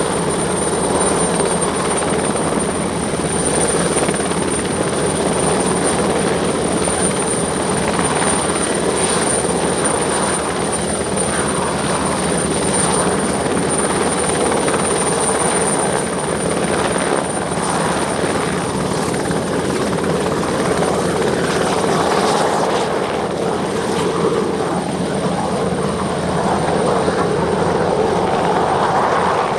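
Sud Aviation Alouette II helicopter's turboshaft turbine and rotor running steadily at takeoff power as it lifts off and hover-taxis. A thin high turbine whine sits over the rotor noise and fades about three quarters of the way through.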